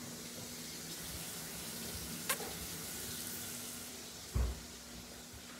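Steady hiss with a faint low hum under it, broken by a sharp click about two seconds in and a dull thump a little past four seconds.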